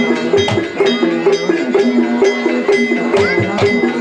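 Javanese gamelan music accompanying a kuda kepang dance: a repeating melody of struck metal notes over regular drum strokes, with a higher line gliding in pitch above it.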